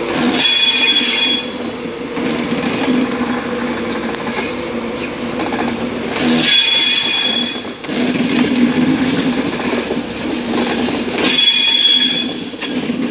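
LNER InterCity 225 train, Mark 4 coaches hauled by a Class 91 electric locomotive, departing at moderate speed with a steady rumble of wheels on the rails. Three brief high flange squeals come about five seconds apart.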